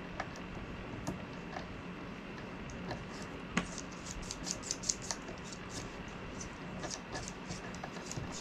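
Small clicks and scratchy ticks of hands working at the needle and thread of a small electric sewing machine, with a sharper click about three and a half seconds in. A faint steady hum runs underneath.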